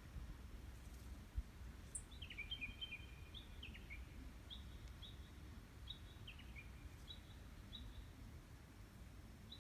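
Japanese bush warbler (uguisu) singing faintly: a run of short whistled notes with quick downward slides for several seconds, over a low background rumble.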